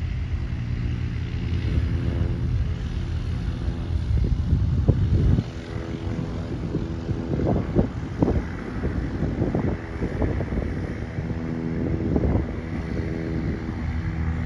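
A small propeller airplane flying overhead, its engine and propeller droning steadily with a set of even tones. A heavy low rumble sits under it and drops away suddenly about five seconds in.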